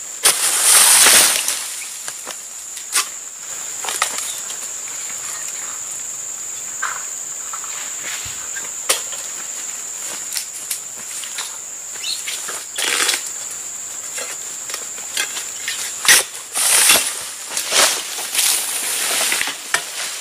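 Steady high-pitched insect drone. Over it come several bursts of rustling and scraping as an egrek, a harvesting sickle on a long pole, is worked through oil palm fronds to cut a fruit bunch. The loudest bursts come just after the start and in the last few seconds.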